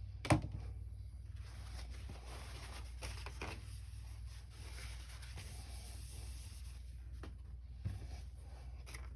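Faint scraping and small clicks of two-part plastic epoxy being dispensed and mixed on a desk, with one sharp click just after the start and a smaller one near the end, over a steady low hum.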